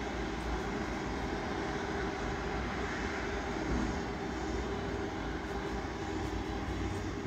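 Jet airliner engines running at low power, a steady noise with a faint hum, from a SriLankan Airlines widebody jet on the taxiway.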